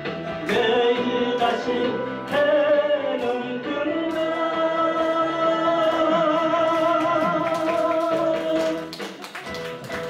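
A man singing into a handheld microphone over backing music with a steady beat, holding long wavering notes. The singing stops about nine seconds in and the music drops back.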